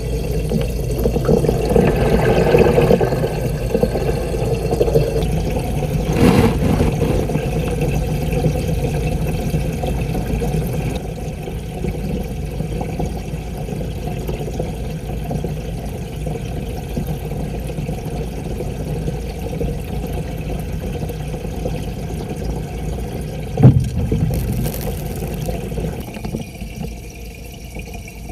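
Steady, muffled water rumble of an aquarium as heard by an action camera submerged in the tank, inside its waterproof housing. A single dull knock late on is the loudest sound.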